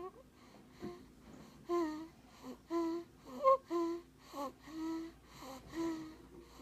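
Squeaky, high-pitched snoring in a steady rhythm, about one snore a second, with a shorter breath sound between snores.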